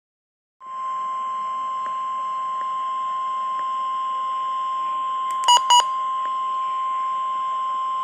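NOAA Weather Radio receiver sounding the warning alarm tone, a steady single-pitched tone with faint static, which signals that a warning broadcast is about to follow. It starts under a second in and holds. Two short, louder beeps cut in about five and a half seconds in.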